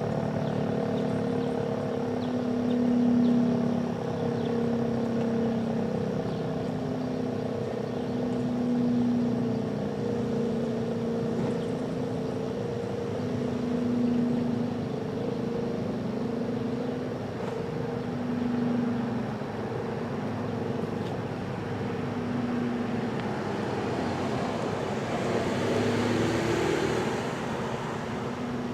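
American Signal RM-127 rotating siren sounding its steady Alert tone, swelling and fading about every five and a half seconds as the rotating head sweeps past. A rush of noise builds near the end.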